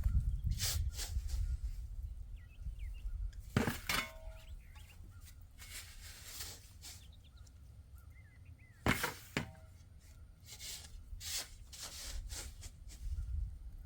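Scattered clinks and knocks, a few sharp ones about four and nine seconds in, over a low rumble, with faint bird chirps.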